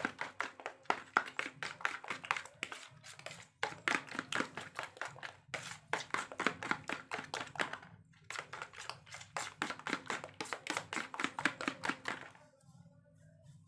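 Metal fork beating raw egg and coconut cream in a plastic bowl: quick clicking taps of the fork against the bowl, several a second, with a few short pauses, stopping shortly before the end.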